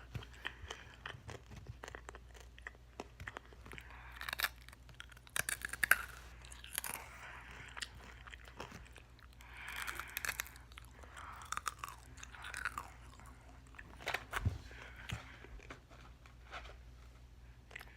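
Close-miked biting and chewing of crispy fried chicken, with irregular crunches and crackles, the loudest bite about six seconds in.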